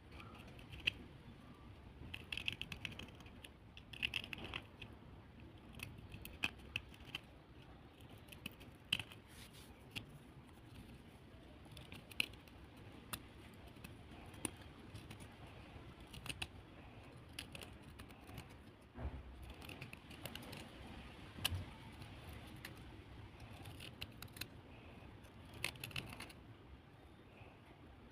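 Dry clay (mitti) crunching and crackling: irregular crisp clicks and snaps, some in quick clusters.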